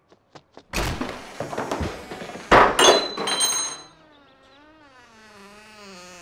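A wooden front door thrown open with a few clicks, then heavy thuds and a rattling metallic clatter. Its hinges then give a long wavering creak as it swings shut.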